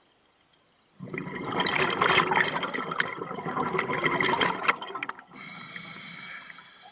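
Scuba diver breathing through a regulator: a loud gush of bubbling exhaust for about four seconds, then after a brief pause a quieter hiss as the next breath is drawn in.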